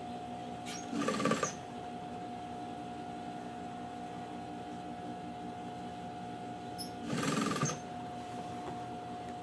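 Electric sewing machine running at a steady speed with a constant motor whine, stitching strips of knit fabric into a rug. Two brief, louder, noisier bursts come about a second in and about seven seconds in.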